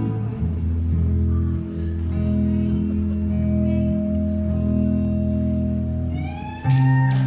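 Electric guitar playing slow, held chords that ring out. Near the end the audience starts whooping and cheering.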